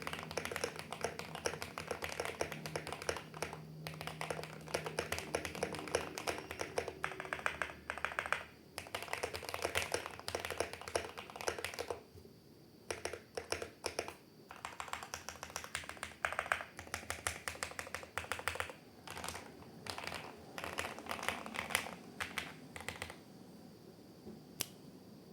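Typing on a GMMK Pro mechanical keyboard with MMD Princess V4 switches: rapid keystrokes in bursts with short pauses, thinning to a few single key presses near the end.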